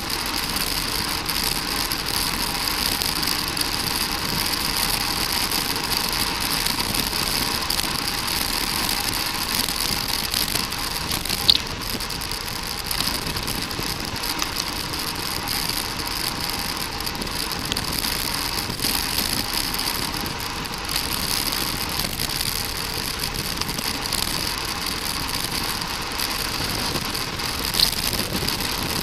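Steady wind and road noise of a bicycle being ridden, with two sharp clicks, one about eleven seconds in and one near the end.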